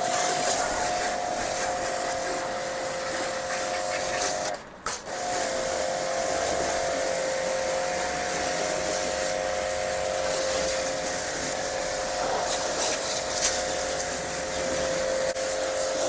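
StarQ ST-25 2100-watt electric pressure washer running, a steady motor whine under the hiss of its water jet as a motorbike is rinsed. The motor cuts out briefly about five seconds in and starts again.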